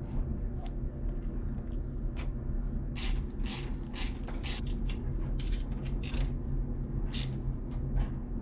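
Hand ratchet clicking in short, irregular runs as the bottom bolt of a RockShox Zeb fork's lower leg is turned in and snugged, over a steady low hum. The clicks start about three seconds in.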